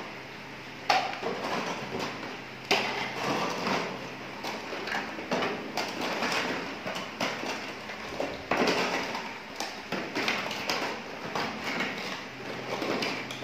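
Hands tapping and handling a miniature toy cooker set: irregular light clicks and knocks, over a faint steady low hum.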